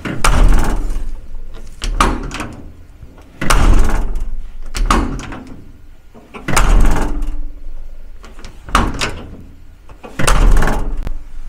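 Uninsulated cab door of a UAZ-39094 Farmer, thin bare sheet-steel panels, slammed shut four times with lighter knocks in between. Each slam rings on for about a second: the hollow, tinny sound of a door with almost no sound insulation.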